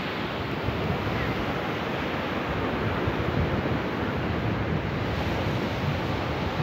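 A small dog digging in loose soil with its front paws: a steady, dense scraping rustle of earth being clawed out of a hole.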